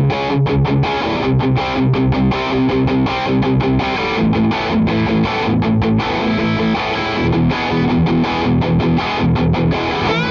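Distorted electric guitar playing a fast, choppy picked riff in quick even strokes, with several guitar parts layered together.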